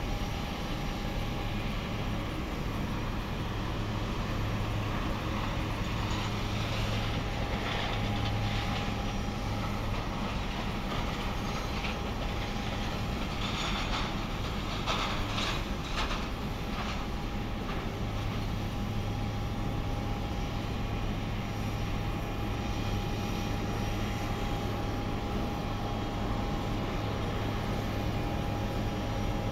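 Steady airport apron noise: a constant low hum with a steady high whine from aircraft and ground equipment, and a louder rushing passage about halfway through.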